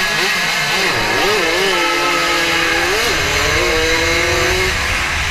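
Small 80 cc racing motorcycle engine running at high revs, heard from the rider's onboard camera: its pitch wavers, then holds steady with a brief jump about three seconds in, and the note fades near the end, leaving a low rumble under steady wind rush.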